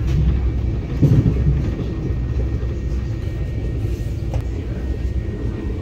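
Cabin noise inside a moving Brightline passenger train: a steady low rumble of the car running on the track, with a brief louder surge about a second in.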